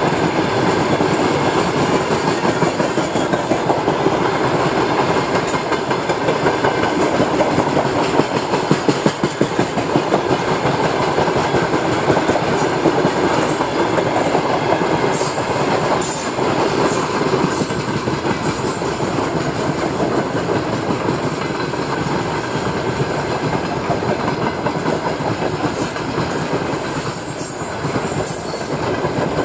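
Freight train of open gondola wagons rolling past: a steady loud rumble of steel wheels on rail, with rapid clickety-clack of wheels over rail joints.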